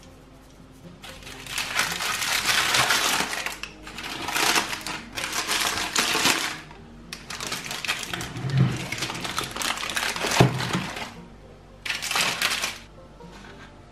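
Baking parchment crinkling and rustling in several bursts as hands handle the paper, with two soft thumps in the middle stretch. Soft background music underneath.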